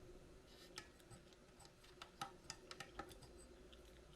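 Near silence with a scatter of faint, sharp clicks and ticks, about a dozen over two and a half seconds starting about a second in: small parts of a hobby RC transmitter being handled.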